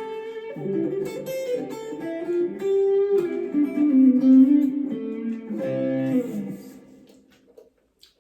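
Gear4Music LA Select strat-style electric guitar being played: a run of single notes and chords that rings on and fades away near the end.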